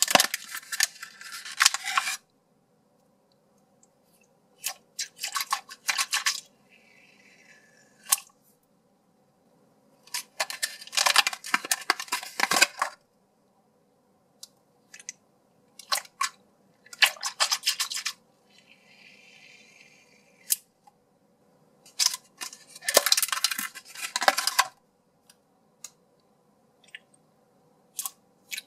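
Handling and opening a clear plastic blister pack by hand, in repeated crackling, crinkling bursts of one to two seconds with short quiet gaps between. Fainter, softer rubbing sounds come from squeezing rubbery water-filled squishy toys.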